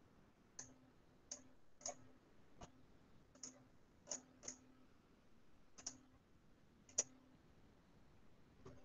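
Computer mouse buttons clicking, about nine faint single clicks at uneven intervals, the loudest about seven seconds in.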